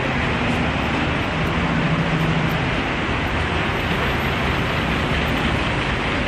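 OM VT4-20NS CNC vertical lathe running: a steady mechanical noise with a low hum underneath.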